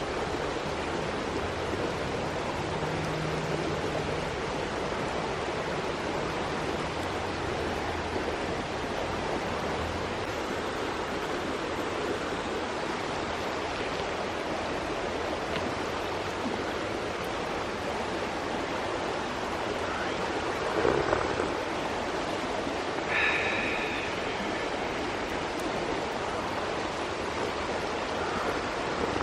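Mountain stream flowing, a steady rushing of water. About two-thirds of the way through there are two brief faint sounds: a short knock, then a short high tone.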